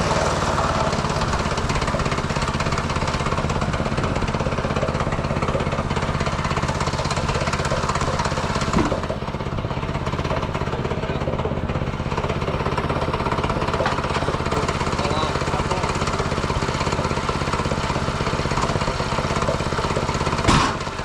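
Mechmaxx SM-22 bandsaw sawmill's pull-start gas engine running steadily. There is a short knock about nine seconds in and another near the end.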